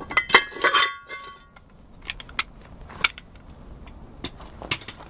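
Metal clanks with a short ringing within the first second, then a few scattered light knocks and clicks: the brake drum just pulled off a Mopar rear axle being handled.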